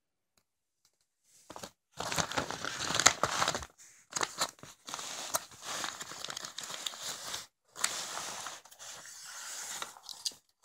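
Clear plastic wrapping on a pack of fireworks rockets being crinkled and torn open by hand, in several stretches of rustling and crackling with short pauses between them.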